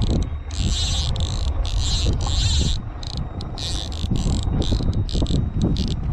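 Fly reel's click drag buzzing in many short, uneven bursts as line moves through it under the pull of a hooked hogfish. A steady low rumble of wind on the microphone runs underneath.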